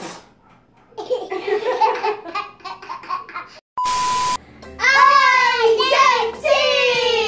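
Children laughing and shrieking in high, falling voices, broken about four seconds in by a short electronic beep.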